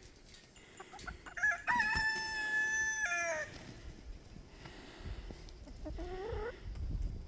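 Rooster crowing once: a few short rising notes, then a long held note that falls away at the end. A shorter rising call follows about two and a half seconds later.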